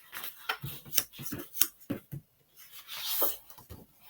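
Sheets of 12 by 12 printed scrapbook paper being handled and slid against one another: a run of short rustles and taps, then a longer swish about three seconds in.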